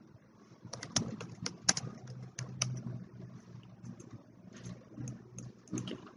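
Typing on a computer keyboard: a quick run of irregular keystrokes in the first few seconds, then a few scattered clicks near the end.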